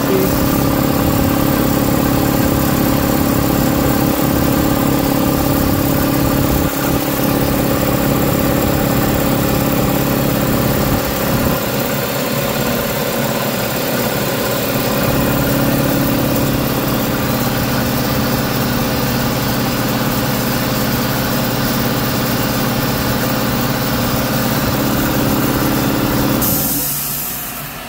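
Husky C304H 30-gallon two-stage air compressor running steadily as it pumps up the tank, with a shop vac running alongside. Near the end the compressor is switched off at its pressure switch: a short hiss, then its hum drops away.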